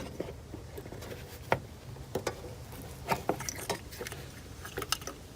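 Scattered light clicks and taps of plastic ignition coil packs and their connectors being handled on the engine, about half a dozen separate clicks.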